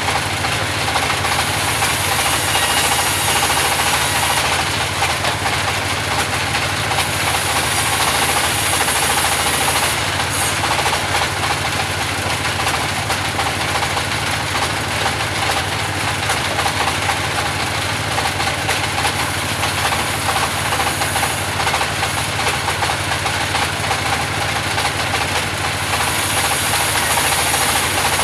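Band sawmill running steadily as it cuts timber into pallet boards: a constant machine drone with a dense high hiss that swells and eases several times as the blade works through the wood.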